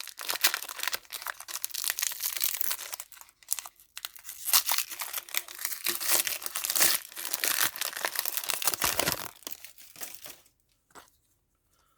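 A trading card booster pack's wrapper being torn open and crinkled, a dense crackling that stops about ten and a half seconds in.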